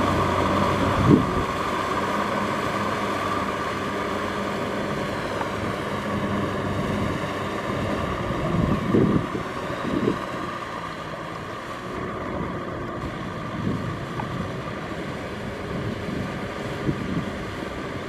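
Kubota M6040SU tractor's diesel engine running steadily under load while it pulls a rotary tiller through deep paddy mud, growing a little quieter partway through. A few short knocks come from the working machine around the middle.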